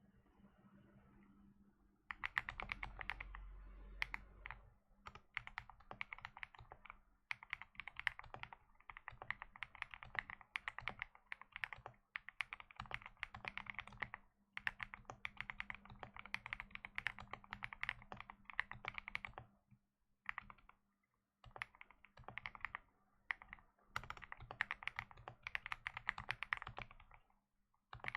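Fast typing on a custom Alice-layout mechanical keyboard with Autumn Rain switches on an FR4 plate and PBT keycaps, as dense runs of key clacks broken by short pauses, over a faint steady hum.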